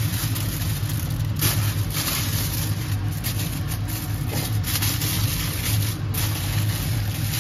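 Aluminium foil crinkling as it is folded and pressed by hand, over a steady low mechanical hum.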